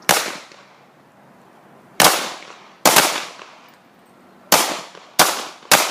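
Handgun shots on a firing range: six sharp shots at uneven intervals, each with a short ringing tail, from several shooters firing a two-round string on command.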